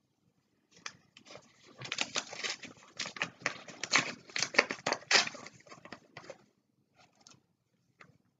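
Paper crinkling and rustling in quick irregular bursts as a greeting card and its envelope are handled and opened, thinning to a few faint rustles near the end.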